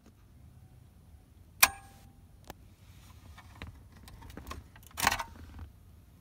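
Metal clicks and rattles of the dashboard cigarette lighter in a 1980 Lincoln Continental Mark VI's tuck-away ashtray being handled in its socket. A sharp click with a short metallic ring comes about a second and a half in, then a few smaller clicks, then a louder scraping rattle around five seconds as the lighter is drawn out.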